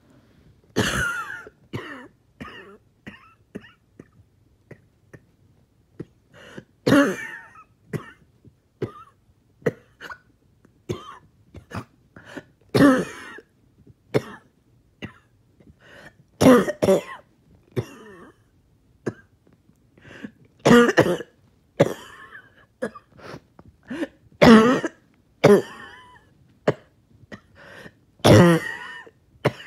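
A person coughing in repeated fits: a loud, harsh cough every few seconds, with smaller coughs and throat clearing between. It is a choking cough with trouble breathing after a 20-minute walk.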